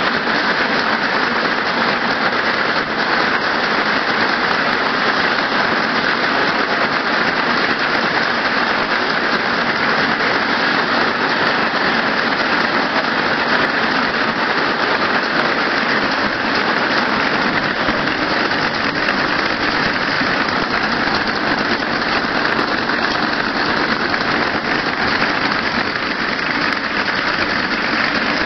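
YH-U-36-1 wire braiding machine for flexible gas hose running, a steady, dense metallic clatter from its many carriers.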